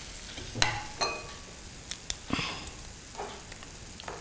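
Wooden spatula stirring and scraping roasted mawa (khoya) around a pan, a few separate strokes, with some light clicks in between.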